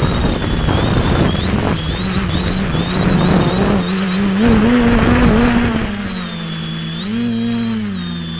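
Quadcopter's electric motors and propellers humming, heard from on board, the pitch rising and falling with throttle changes about halfway through and again near the end, with a thin high whine above. A heavy rushing noise covers the first six seconds or so, then drops away.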